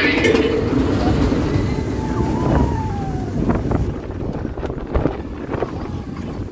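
Wind buffeting the microphone over the rumble of the Seven Dwarfs Mine Train roller coaster train running along its track, with a few sharp knocks in the second half. A brief high squeal rises and falls about two seconds in.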